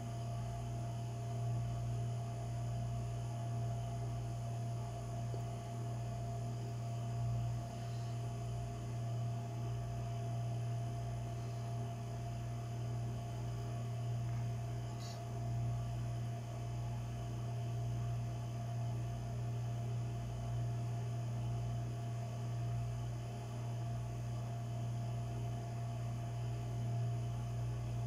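A steady low hum with a fainter, higher steady tone above it. A faint tick comes about halfway through.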